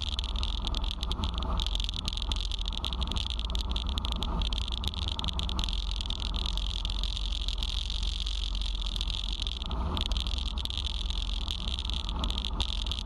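Wind buffeting the microphone with a steady low rumble, over the constant hiss and splash of water rushing past the hulls of a Hobie Cat catamaran sailing fast.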